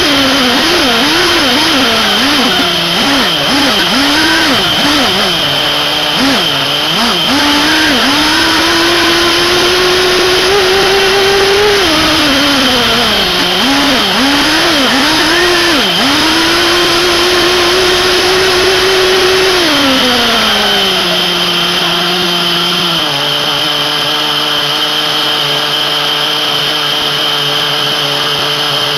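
Small two-stroke nitro glow engine (SH PT21-P3, 3.48 cc) of a 1/8 scale RC buggy, heard from on board, revving up and down repeatedly as the car is driven. About 20 seconds in the revs fall away and it settles to a steady idle. A steady high whine runs beneath throughout.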